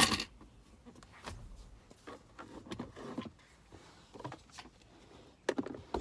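Items being handled in a car's plastic center console organizer: a loud plastic clack at the start, then faint scattered rustles and small knocks, and a sharper click or two near the end.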